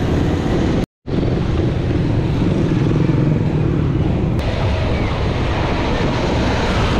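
Steady road traffic and wind rush on the microphone of a moving bicycle, with tyre noise from a wet road. The sound cuts out for a moment about a second in.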